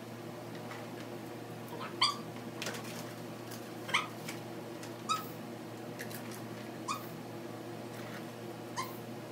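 A dog making about six short, sharp sounds, each with a brief ringing tone, as it steps off and back onto a stationary dog treadmill, over a steady low hum.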